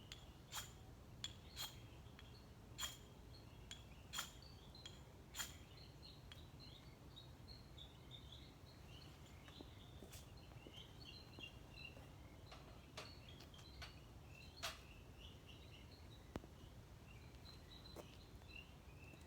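Faint outdoor ambience: a steady low hum with many small high chirps throughout and a scattering of sharp clicks, most of them in the first six seconds.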